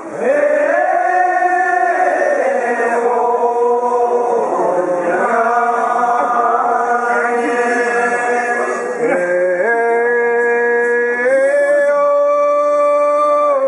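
Men's voices chanting a festival song in long held notes that step up and down in pitch.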